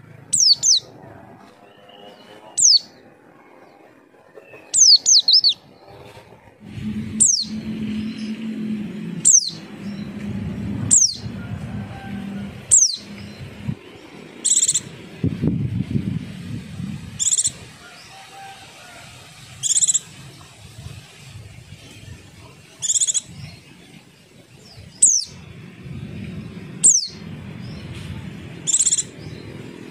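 White-eye (pleci) giving short, high call notes, most sliding quickly down in pitch, repeated about every two seconds: a calling bird of the kind used to lure other white-eyes into answering.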